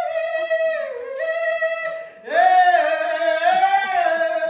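A man singing long held notes in a high voice, in two phrases: the first breaks off about two seconds in, and a louder second phrase follows at once.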